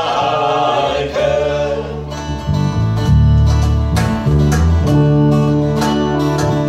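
Live acoustic folk band: group vocals end on a held note about a second in, then an instrumental passage of strummed acoustic guitars over a cello bass line, with a cajon keeping a steady beat.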